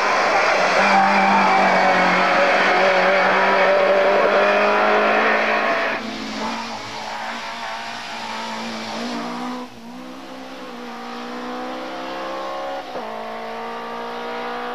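Racing saloon car engines at full throttle on a hillclimb, with some tyre squeal. First one car runs loud at high revs. Then a quieter, more distant car accelerates, its engine note climbing and dropping twice at upshifts.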